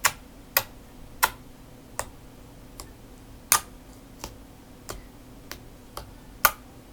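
Sharp plastic clicks and taps from handling the containers of a slime palette, about ten of them at uneven intervals, the loudest around the middle and near the end.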